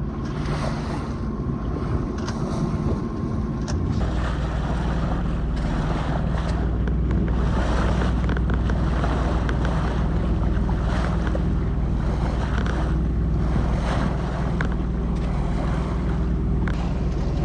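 A small sailing yacht's engine running steadily under way, with water rushing past the hull and wind on the microphone. The engine note gets stronger about four seconds in.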